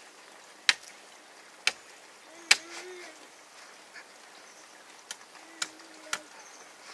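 About six sharp, short knocks at irregular intervals of roughly a second, with two faint low hums in between.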